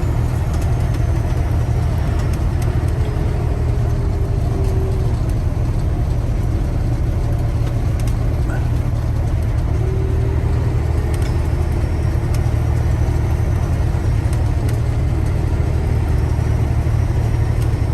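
Semi truck's diesel engine droning steadily at cruise with road noise, heard from inside the cab.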